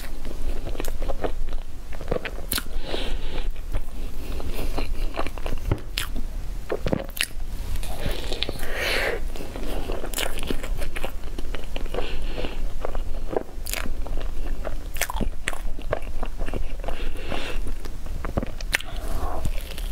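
Close-up eating sounds of biting into and chewing a cocoa-dusted pastry roll, with irregular sharp mouth clicks and smacks.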